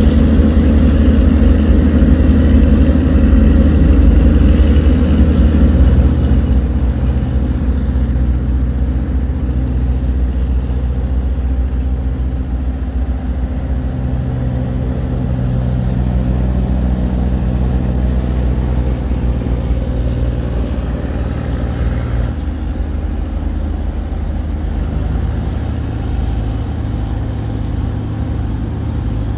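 Tugboat's diesel engine running steadily under load as it tows a cargo barge against the current, a low drone that eases slightly about six seconds in.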